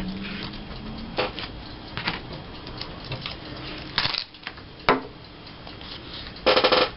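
Paper and craft pieces being handled on a tabletop: scattered light taps and paper rustling, with a quick run of clicks near the end.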